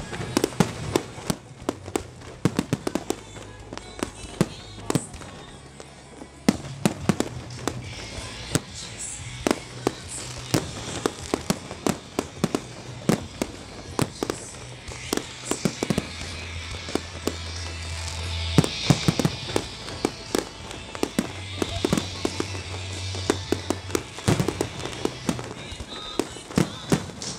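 Aerial fireworks display: shells bursting in rapid, irregular bangs, several a second at times.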